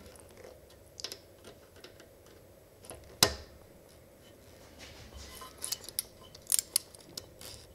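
Needle-nose pliers and small metal tools clicking and tapping against the rocker arms of a Honda GXC160 engine during a valve-clearance adjustment. There are a few light clicks, one sharp click about three seconds in, and a cluster of quick ticks near the end.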